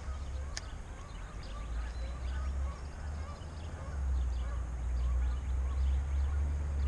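Birds calling faintly and repeatedly over a steady low rumble that grows louder about halfway through, with a single sharp click about half a second in.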